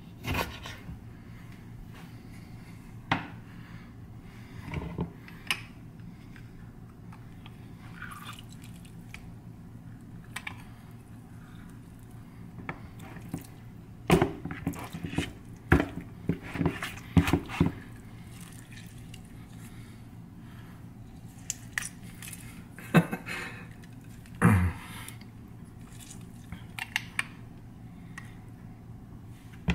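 Scattered clicks and knocks of kitchen handling: a metal hand lime squeezer being worked over a plastic bowl and raw chicken pieces being moved in the bowl, busiest in the middle. A low steady hum runs underneath.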